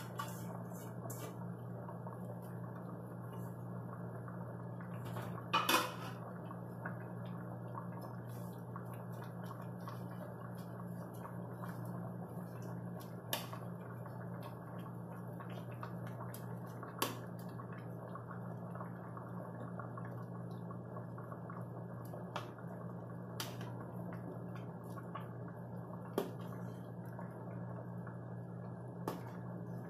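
Metal ladle clinking and scraping against an aluminium stockpot while leafy greens are stirred into soup, with a louder clatter of pots about six seconds in. A steady low hum runs underneath.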